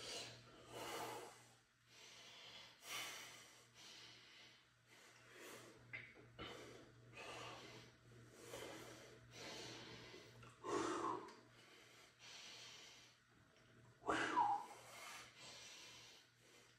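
A man breathing hard through a set of dumbbell curls: a short, forceful exhale every second or so, with two louder, strained grunting exhales in the later part.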